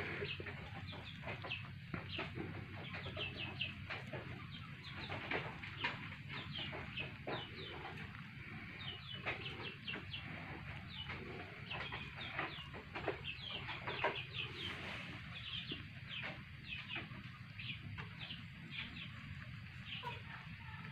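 Chickens clucking, with many short, high chirps and calls scattered throughout over a steady low hum.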